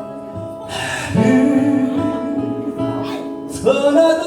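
Instrumental passage of a Korean song with no singing: held notes over a backing accompaniment, with new lead notes sliding up into pitch about a second in and again near the end.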